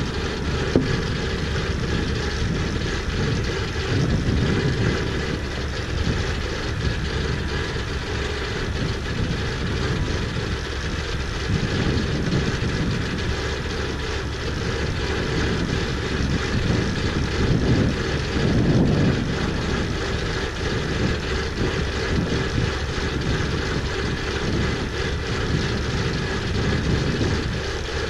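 An engine running steadily, swelling louder a few times.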